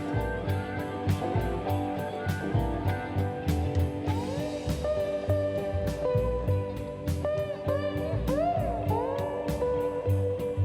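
Background music led by guitar over a steady beat, with sliding bent notes in the second half.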